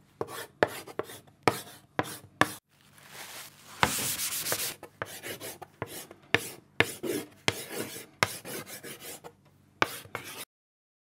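Chalk writing on a blackboard: a run of quick taps and short scratching strokes, with one longer scrape about four seconds in.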